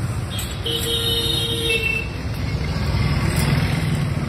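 Street traffic rumbling steadily, swelling as a vehicle passes near the end, with a short high tone lasting about a second from roughly half a second in.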